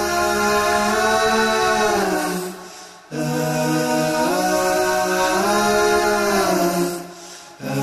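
A cappella vocal music, chant-like: long held sung notes in phrases about three seconds long, each bending slowly in pitch, with a short break between phrases.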